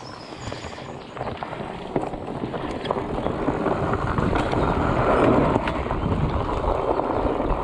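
Bike rolling fast along a dirt singletrack: tyre noise and wind rushing over the camera microphone, with short rattles and clicks from the bike over bumps.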